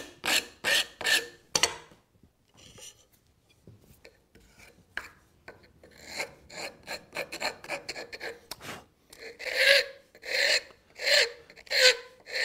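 Wood rasp cutting into a wooden moulding in repeated push strokes, about two to three a second. The strokes are loud for the first couple of seconds, grow faint for several seconds, and come back loud about ten seconds in.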